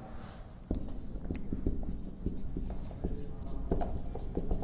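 Marker pen writing on a whiteboard: irregular short scratches and taps as the words are stroked out.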